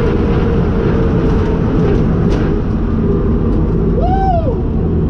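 Steady engine and road noise of a car cruising at highway speed, heard from inside the cabin, with no change in revs. About four seconds in, a person lets out one short rising-and-falling shout.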